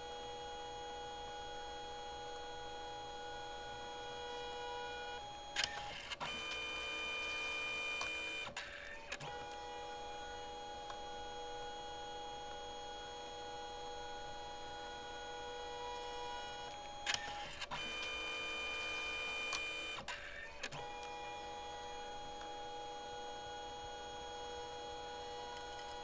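Compact photo printer running a print: a steady motor whine of several tones that twice shifts to a different, slightly louder whine, with clicks at each change about 6 and 17 seconds in, and switches back around 9 and 21 seconds.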